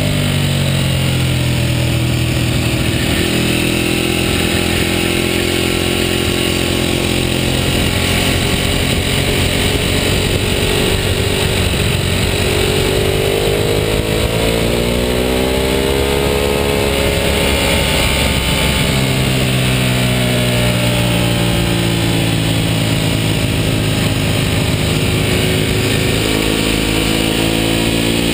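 Ducati superbike's L-twin engine running at road speed, its revs dropping, holding, then climbing around the middle and dropping again, under steady heavy wind rush on the microphone.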